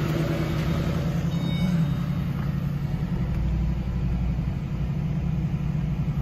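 The 4.6-litre V8 of a 106,000-mile 2007 Ford Mustang GT idling steadily just after it was started.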